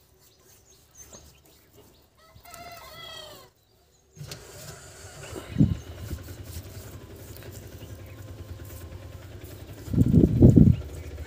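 A rooster crows briefly in the background. After a short dropout a steady low rumble takes over, with a thump and then a louder low burst near the end.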